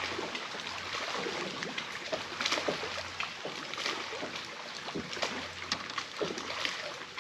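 Small waves lapping and splashing against the hull of a bass boat, an uneven wash broken by many short slaps.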